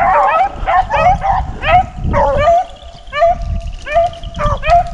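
A pack of rabbit hounds baying as they run a rabbit. It is a steady string of short, ringing yelps, about two or three a second, with several dogs calling over one another at different pitches.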